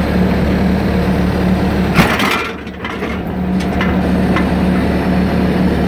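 Bobcat S300 skid-steer's diesel engine running steadily. About two seconds in, a loud sharp clunk as the backhoe attachment is knocked free of its locked position, and a second clunk near the end.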